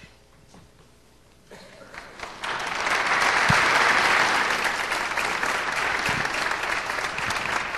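Audience applauding, starting about a second and a half in and quickly building to full, steady clapping.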